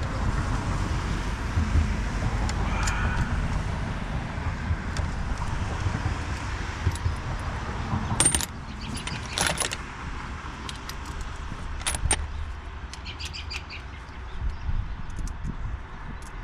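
Metal hand tools clinking and tapping against each other and on car parts while unbolting in an engine bay, in scattered sharp clinks with a short ringing rattle near the end, over a steady low rumble.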